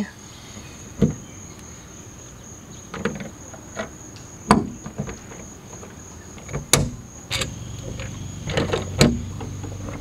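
Scattered sharp metal clicks and knocks, about six in all, as a hand tool with a Torx T50 bit works the hinge bolts out of a Jeep Wrangler door. Under them a steady high chirring of crickets.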